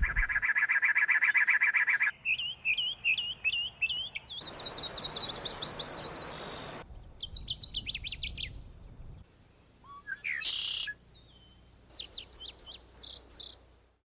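Birds singing and calling in a string of short clips, one after another: a fast trill, then runs of high repeated chirps, a rapid series of high descending notes, and a few scattered chirps near the end.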